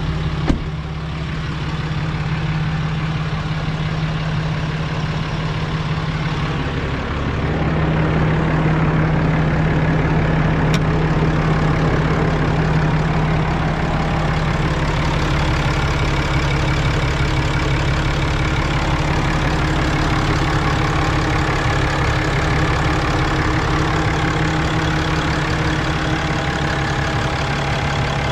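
Ram 3500's 6.7-litre Cummins turbo-diesel idling steadily, extremely quiet for a diesel. A truck door shuts with a thump about half a second in.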